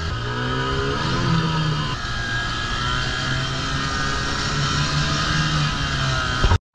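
Outboard motor on an inflatable boat speeding up, then running steadily at cruising speed; the sound cuts out abruptly for a moment near the end.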